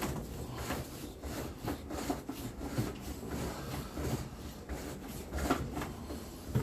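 A drain cable being fed into a sewer main line, making irregular rubbing and scraping strokes.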